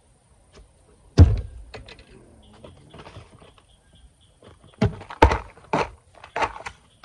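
Thuds and knocks of gear being handled and moved about on a fishing boat's deck: one heavy thump about a second in, soft rustling, then a quick run of four or five knocks near the end.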